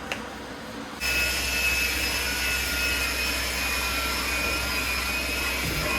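A steady machine whine over a loud hiss starts abruptly about a second in and holds level.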